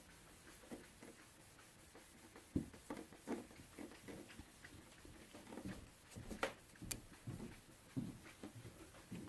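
Foam applicator pad rubbing polishing compound over a plastic headlight lens: faint, irregular scuffing strokes with a few small clicks and knocks of the lens being handled.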